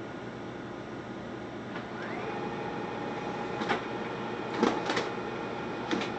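Lexmark T642 laser printer starting a print job: a steady hum, then about two seconds in a motor whines up in pitch and holds a steady tone, with several sharp clicks in the second half as the paper pick mechanism works. The printer is failing to pull paper up out of tray 1 and is jamming.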